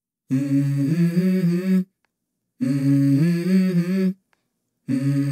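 Background music: a wordless hummed vocal melody, sung as three short phrases of about a second and a half each with brief gaps between them, opening the next rap track.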